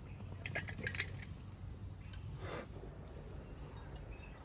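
Faint clicks and light taps of hands setting shaped soybean-paste dumplings onto a stainless steel plate, with a cluster of clicks about a second in, over a low steady hum.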